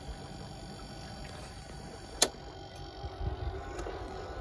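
Portable countertop ice maker running its harvest cycle, a steady motor hum as the heated rods release the cubes, with one sharp click about halfway through. Near the end a low rumble and a slowly rising whine come in.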